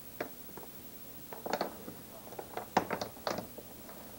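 Wooden Cuisenaire rods clicking and clattering as they are picked up, knocked together and set down on a table: a string of light, irregular clicks, thickest from about a second and a half to three and a half seconds in.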